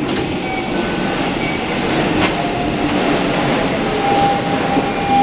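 Running sound of a Keikyu New 1000 series train with a Toyo IGBT-VVVF inverter, heard from inside the car: wheels on rail with the inverter and traction motors whining. The train is drawing into Koyasu station. A high whine falls slightly in pitch over the first two seconds, a click comes about two seconds in, and a steady tone comes in about four seconds in.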